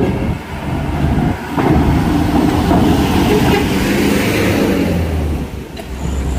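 Diesel engine of a box truck running under load as it drives off a ferry ramp and passes close by, loudest about three to four seconds in. A single knock about a second and a half in.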